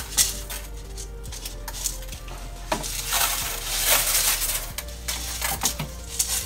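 Dark live sand being poured from a plastic cup into a glass aquarium: a rushing hiss of grains, in a few runs, with sharp clicks of grains hitting the glass and rock.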